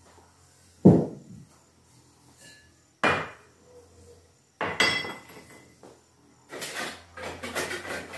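Cast-iron rings of a wood-burning stove's hotplate being lifted off and set down, with three sharp metal clanks in the first five seconds, the later two ringing. Near the end comes a longer stretch of scraping and rustling.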